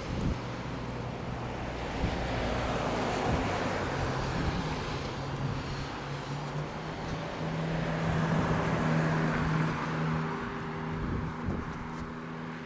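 Road traffic: cars driving past on a town street, tyre noise with a low engine hum that swells and fades.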